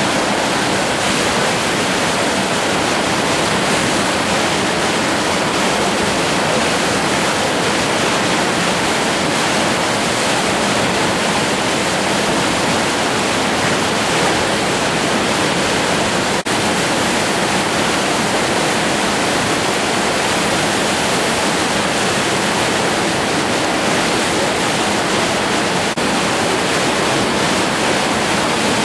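Whitewater rapids rushing steadily, a constant loud hiss of churning water, broken once by a short click about halfway through.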